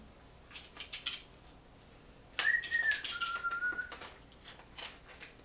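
A few light handling clicks, then an aerosol can of Ballistol oil spraying for about a second and a half: a hiss with a whistling tone that drops in pitch partway through.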